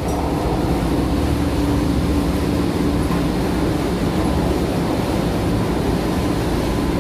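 Steady drone of running machinery in a water filter plant room, a constant low hum with a faint steady whine over it.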